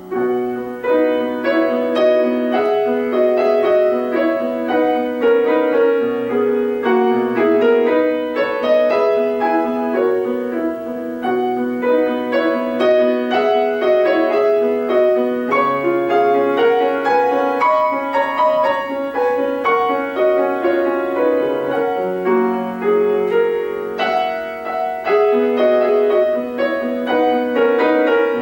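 Grand piano playing a classical solo piece: a close, continuous stream of notes and chords that comes in loudly right at the start.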